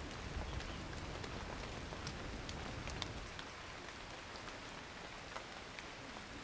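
Steady rain falling, with many scattered sharp drips. A low thunder rumble dies away about three seconds in.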